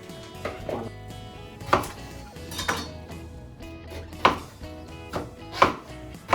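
Kitchenware knocking and clattering: about six sharp, separate knocks at uneven intervals, each ringing briefly, over background music.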